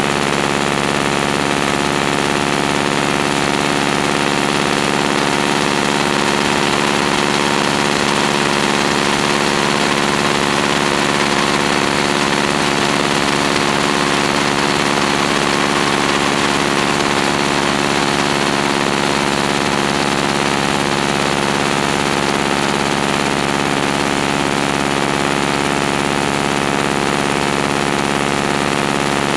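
Stearman biplane's radial engine and propeller droning steadily in level flight, with airflow rushing over a microphone mounted out on the wing.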